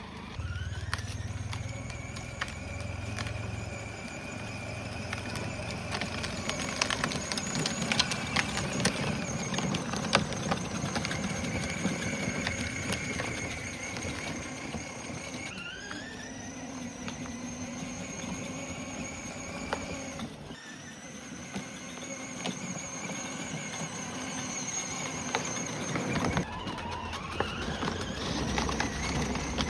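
Electric drive motors of a battery-powered two-seater ride-on kids' car whining as it drives. The whine rises in pitch as the car sets off, holds steady, climbs again, cuts out for a few seconds and rises again near the end. Scattered knocks and rattles are heard over it.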